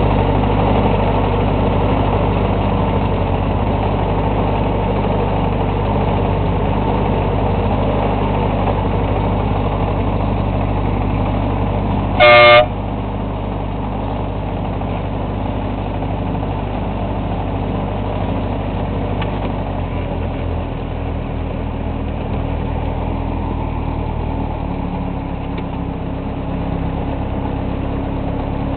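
Miniature railway locomotive C503's engine running steadily as it hauls along the track, with one short horn toot about twelve seconds in. The engine note shifts lower about twenty seconds in.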